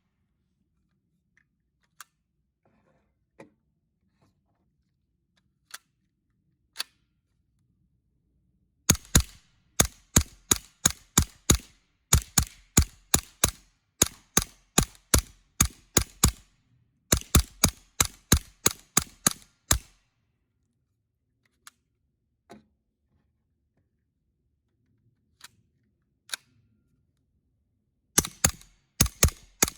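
Suppressed 9mm CZ Scorpion carbine fired fast, about three shots a second, through its IASC9 integral suppressor. One long string of shots runs from about nine seconds in to twenty, with brief breaks, and another starts near the end. The quiet stretches between hold only a few single clicks.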